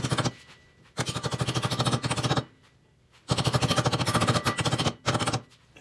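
Green-headed mallet tapping quickly on a metal brake-rotor adapter to drive it down onto a Peerless differential, in several bursts of rapid taps, about ten a second, with short pauses between. The fit is tight and the adapter is being knocked down flush.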